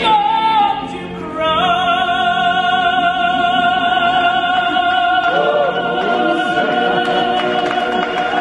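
A cappella vocal ensemble singing in harmony. A little over a second in, the voices settle onto a long held chord, with a high voice sustaining the top note for about seven seconds.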